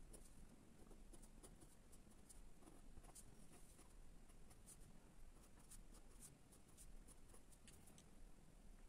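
Faint scratching of a pen on paper in many short strokes, stopping near the end.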